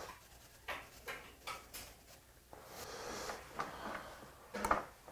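Sugar shaken from a jar into a bowl of red bean porridge: a few light taps in the first two seconds. After that a spoon stirs the porridge in a ceramic bowl, with a soft scraping and a couple of small clinks.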